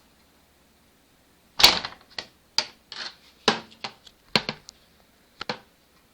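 A refrigerator door handle being worked off its mounting brackets: about eight sharp knocks and clicks over some four seconds, the first the loudest, starting about a second and a half in.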